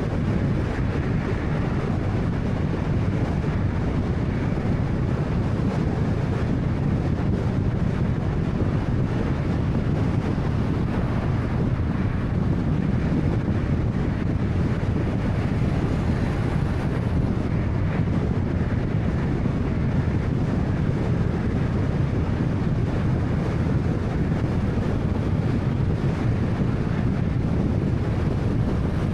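2013 Honda Fit driving along at a steady pace: continuous road and tyre noise with a low rumble, unchanging throughout.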